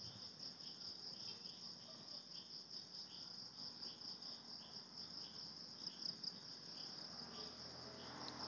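Faint insect chirping: a steady high trill with softer chirps about two or three times a second. A couple of faint clicks come about six seconds in.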